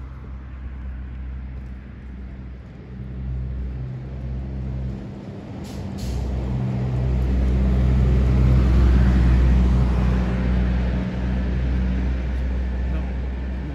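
A motor vehicle's engine running close by, its low hum swelling to its loudest about two-thirds of the way through and then easing off, as a vehicle does when it passes.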